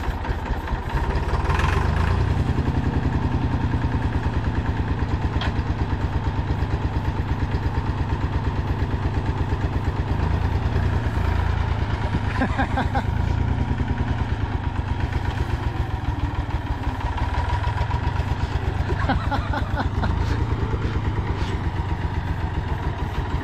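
Massey Ferguson 200 Turf tractor's three-cylinder engine running with a steady, rough pulse as the tractor is driven forward. It is not firing on all three cylinders, the owner thinks, and is starved of fuel and kept going with ether.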